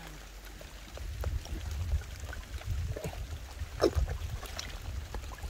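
Shallow water sloshing and trickling as someone gropes for fish by hand in the mud, over a low rumble, with a few small splashes and clicks.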